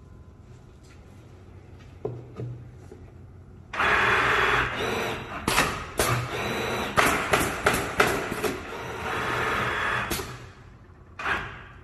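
Pneumatic automatic canvas stretching and stapling machine working through a cycle: a knock, then loud bursts of air hiss broken by a quick run of sharp staple shots, with a short last hiss near the end.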